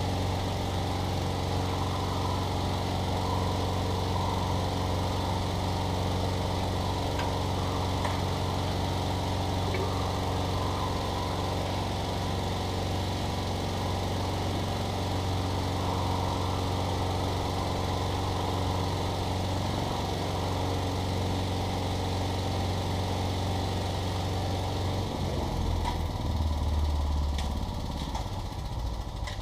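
Engine of a Trac Vac leaf and debris vacuum running steadily while its mulching impeller sucks up sawdust and bark chips. The engine note shifts about 25 seconds in, swells briefly, then falls away near the end.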